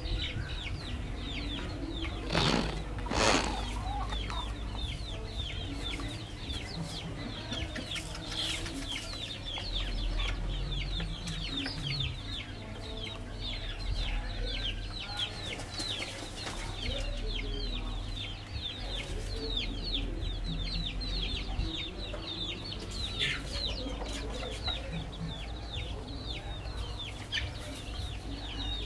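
Chicken yard sounds: a constant chatter of short, high, falling cheeps with low clucking, and a louder noisy burst about three seconds in.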